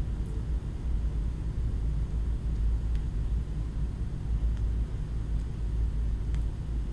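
Steady low rumble of background noise with an uneven level, and a few faint high clicks.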